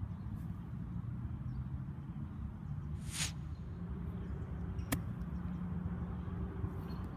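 A 58° wedge striking a golf ball on a lob shot from short grass: one sharp click about five seconds in. A steady low rumble runs underneath, with a brief hiss a couple of seconds before the strike.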